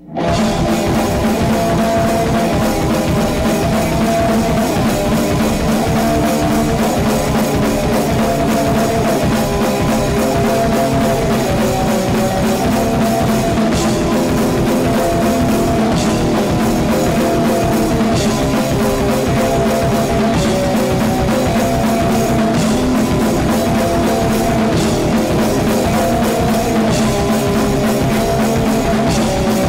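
Loud recorded rock music: a drum kit and electric guitar playing a full-band song.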